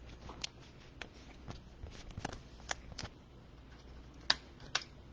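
Trading cards and plastic card sleeves being handled: scattered faint light clicks and ticks, with two sharper clicks near the end.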